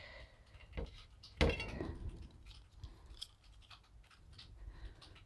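Quiet handling of a sealant syringe and tubeless valve stem: a sharp plastic click about a second and a half in, with a few small taps around it.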